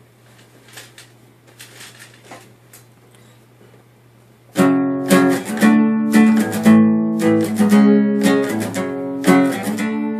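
Acoustic guitar strummed in chords, starting abruptly about four and a half seconds in, with a new strum every third of a second or so. Before it there is only a faint low hum and a few soft taps. The guitar is heard through a cell phone microphone.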